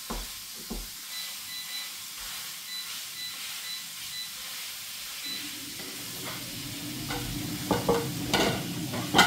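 Food sizzling in a frying pan on the stove, stirred with a spatula, with a steady hiss. Near the end, plates clatter as they are set down on a wooden table, the loudest moment.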